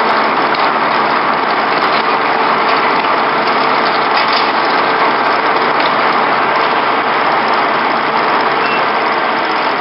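Engine running steadily at a constant speed, a loud even noise with no change in pitch.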